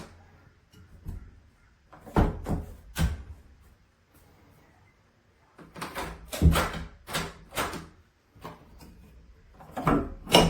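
Interior door knocking against a steel cat door latch that holds it ajar: groups of sharp knocks and rattles, three about two seconds in, a run of five or six at about six seconds, and a last pair near the end.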